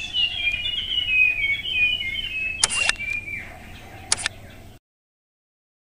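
Birds chirping in a quick series of short, high, falling notes over a steady low background noise. Two brief sharp clicks come a little under three seconds in and about four seconds in, and the sound cuts off suddenly into dead silence for the last second.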